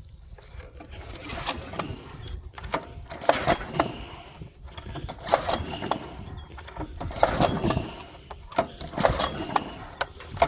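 Log splitter's small gasoline engine being pull-started in repeated short tugs, each pull a brief rattling burst, without catching into a steady run.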